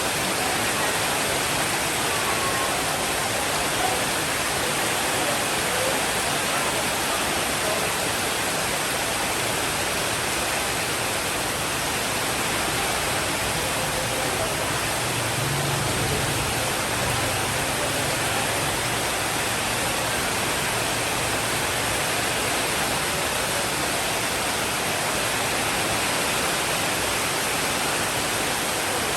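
Steady rain falling, a continuous even hiss, with a soft low rumble of distant thunder about halfway through.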